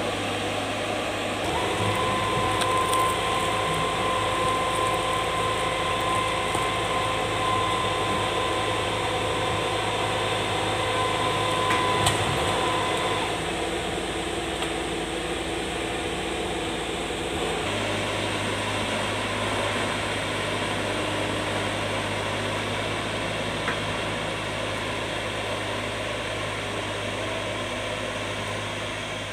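Diesel engines of heavy logging machinery running steadily as a crawler bulldozer skids a felled log up the trail with an excavator working nearby. A higher whine joins about two seconds in and stops around thirteen seconds, and the engine note changes near eighteen seconds.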